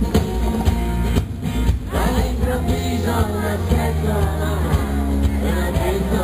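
Live pop song from a band with bass and drums, with a lead vocal coming in about two seconds in.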